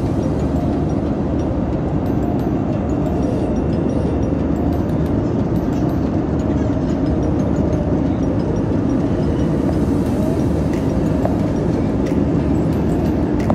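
Jet airliner cabin noise in flight, heard at a window seat: a steady low rush of engine and airflow noise.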